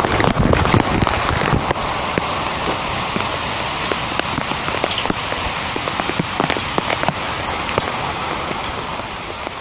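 Muddy floodwater rushing in a torrent down a hillside channel, a loud, steady rush of water with many small sharp cracks and ticks through it. It fades a little near the end.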